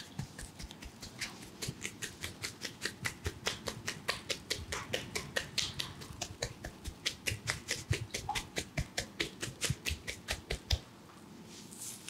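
Rapid percussive hand tapping on a man's head during an Indian head massage: the masseuse's clasped palms clap against the scalp in an even run of sharp claps, about four a second. The tapping stops about eleven seconds in.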